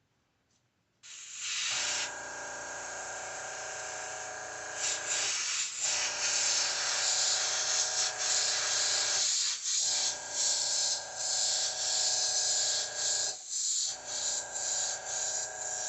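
Airbrush spraying paint: a steady hiss of air with a pitched hum beneath it, starting about a second in and cutting out briefly three times as the trigger is let go and pressed again.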